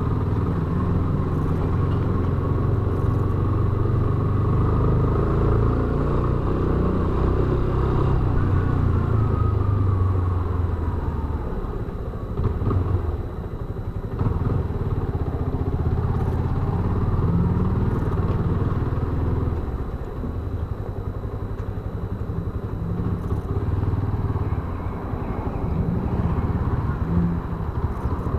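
Yamaha Fazer 250 BlueFlex motorcycle's single-cylinder engine running, its pitch and level shifting up and down, easing off about twelve seconds in and again for a few seconds after the twentieth second.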